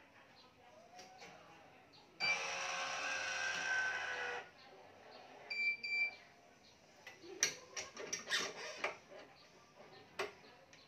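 Electronic stringing machine's tensioner motor pulling a badminton string to tension (29 lb) for about two seconds, then two short beeps from the machine. Sharp clicks of clamps and string handling follow.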